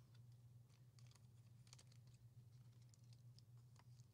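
Near silence: room tone with a low steady hum and scattered faint light clicks.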